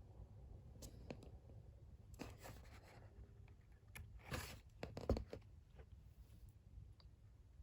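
Faint paper handling: a photo book's glossy pages being turned and shifted in a series of short rustles, with a soft knock about five seconds in.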